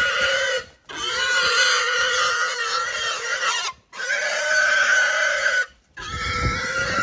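Farm animals calling in long, wavering pitched cries, cut off abruptly three times, about one, four and six seconds in.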